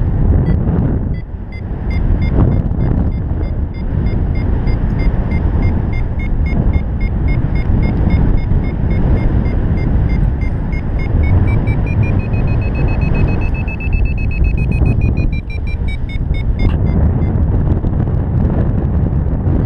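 Paragliding variometer beeping in a steady train of short tones, the pitch rising in the middle and then dropping before the beeps stop a few seconds before the end; the beeping signals the glider climbing in lift. Heavy wind rumble from the airflow over the microphone is the loudest sound.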